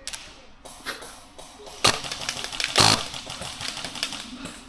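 Well Pro KS1 airsoft electric gun firing two very short, rapid bursts about a second apart, the second the louder, each a fast rattle of shots from its roughly 50-rounds-a-second rate of fire.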